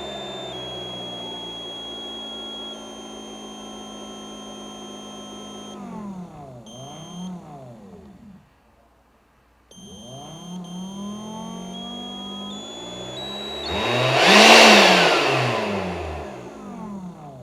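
Makita cordless blower's motor winding down to a stop, then spinning back up to a loud rush of air about fourteen seconds in and winding down again. A high-pitched electronic whine that steps in pitch runs over the motor sound: an odd-sounding but normal operating noise, not a fault.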